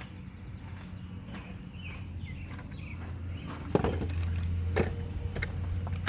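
Sharp clicks and knocks of parts being handled in a car's engine bay, the loudest about two-thirds of the way in, over a steady low hum. Short high chirps of birds in the first couple of seconds.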